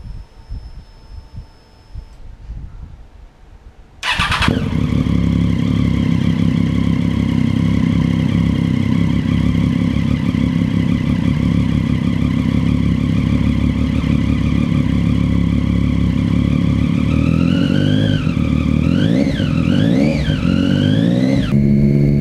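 Motorcycle engine with a newly fitted exhaust, starting about four seconds in after a few faint knocks, then idling loud and steady. Near the end it is blipped several times, the pitch rising and falling with each rev.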